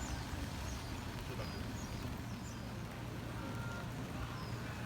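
Rainy outdoor ambience: an even hiss of falling rain over a low rumble, with a few faint high chirps.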